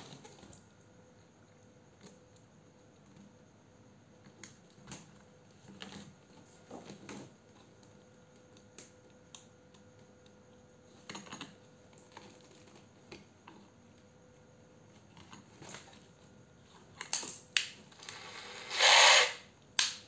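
Small clicks and taps of wires being handled against a Makita 9.6V cordless impact driver's battery terminals, then near the end the driver runs in a few short bursts, the loudest lasting under a second. The seller says the tool is slightly stuck from rust.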